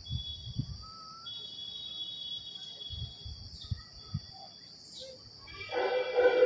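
Quiet outdoor background with a faint, steady high-pitched whine that breaks off now and then, and irregular low thumps. Loud music with a clear pitch comes in near the end.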